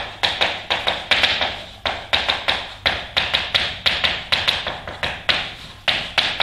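Chalk writing on a blackboard: a quick, irregular run of sharp taps and short scrapes, about four strokes a second.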